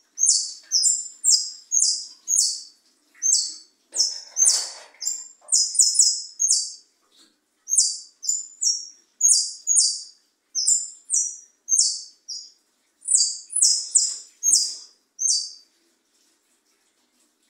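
A jilguero singing a long run of short, sharp, high notes, about two a second, that stops near the end.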